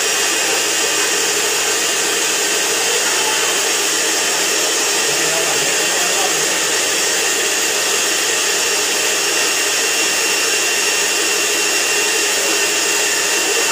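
Electrolux EWF984 front-loading washing machine's motor running steadily, with the whirring hiss of newly fitted carbon brushes that have not yet worn in to the commutator.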